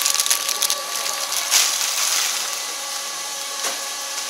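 Automatic vegetable flow-wrapping machine (EarthPack FR-102-V3) running with a steady hum, as it heat-seals clear film around bunches of vegetables and cuts the bags apart. A few crinkles and clicks of plastic film come through, the loudest about a second and a half in.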